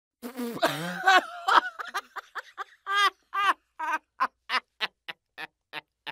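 A person laughing after a punchline. It starts with a longer, louder outburst, then breaks into a run of short, high 'ha' bursts, about three a second.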